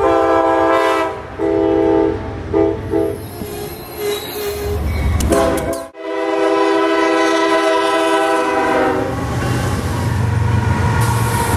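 Diesel locomotive air horns: several separate blasts, two long then shorter ones, in the pattern blown for a grade crossing. After a cut, another horn is held for about three seconds, then the low rumble of locomotives passing close with wheel noise on the rails.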